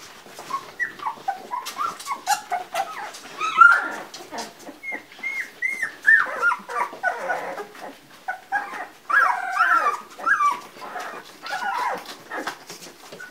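Two-week-old Labrador retriever puppies squeaking and whining, many short high calls that rise and fall in pitch, as they crowd in to nurse. Soft clicks run through the squeaks.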